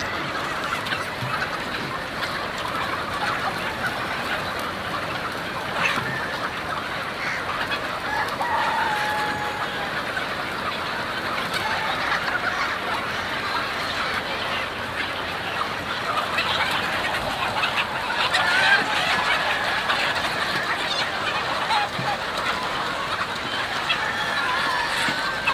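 A large flock of domestic chickens clucking and squawking continuously, with a rooster crowing now and then.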